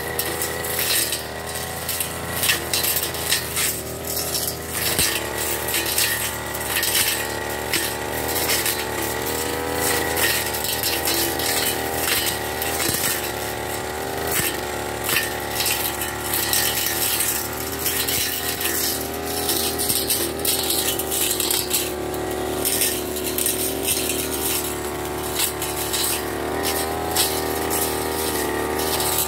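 Backpack brush cutter engine running at high revs throughout, its pitch wavering slightly as the cutting head works through grass and weeds. Frequent sharp clicks and rattles run over the engine sound.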